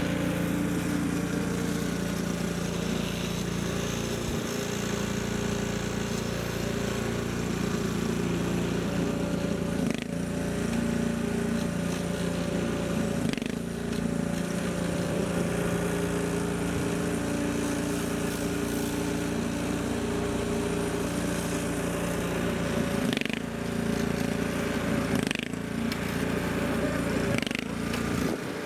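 A small engine running steadily at an even pitch, with a few short knocks over it.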